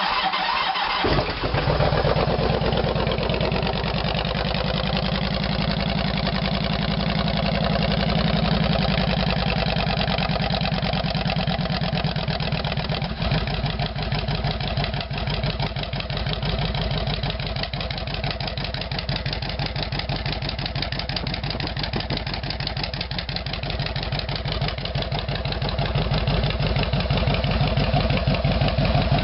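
Kawasaki Vulcan 2000's big fuel-injected V-twin started through Hard-Krome 3-inch straight pipes with Thunder baffles: it cranks briefly and catches about a second in, then runs at a fast idle. About halfway through it settles into a slower, lumpy idle, the exhaust really loud.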